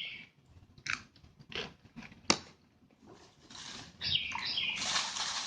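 Close-up eating sounds of rawon and soft-boiled egg: wet chewing with scattered mouth clicks, a sharp click a little past two seconds, and denser, louder chewing near the end.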